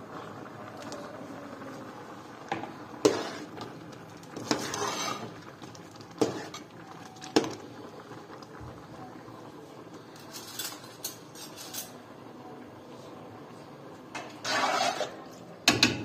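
Irregular clinks and knocks of kitchen dishes and utensils, about a dozen over the stretch, with two short scraping noises, one near the start and one near the end.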